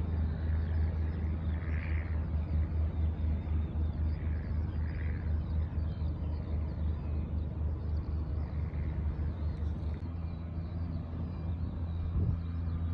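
Steady low rumble of machinery running across an airport apron, with a slightly wavering level and a small change in the hum about ten seconds in.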